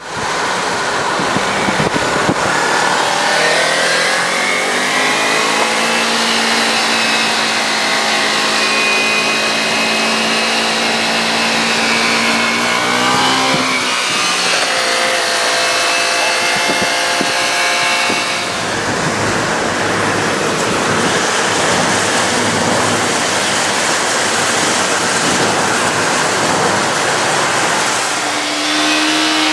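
Kawasaki Ninja 300's parallel-twin engine accelerating on the road, its pitch climbing and then holding steady as it cruises, with a hissing stretch of road noise about two-thirds of the way through and the engine note rising again near the end.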